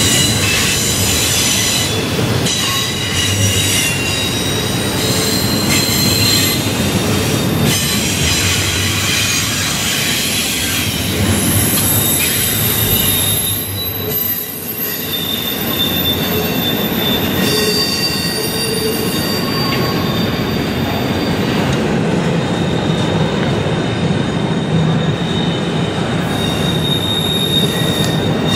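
Norfolk Southern freight train of double-stack container cars rolling past. A steady loud rumble of wheels on rail runs throughout, with high-pitched wheel squeals that come and go for a few seconds at a time. The level dips briefly about halfway through.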